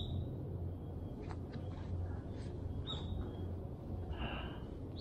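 Footsteps crunching through dry fallen leaves on a forest slope, with a steady low rumble from walking and a few scattered crackles. A couple of brief, faint high chirps sound through it, about two seconds apart.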